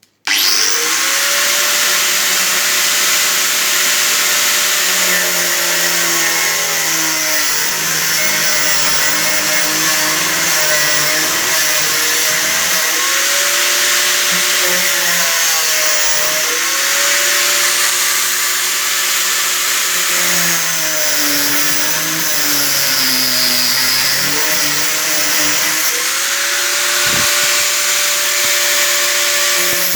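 Angle grinder starting up and cutting through a radiator core: a loud, steady motor whine with grinding hiss. The pitch sags and recovers several times as the disc is pressed into the cut.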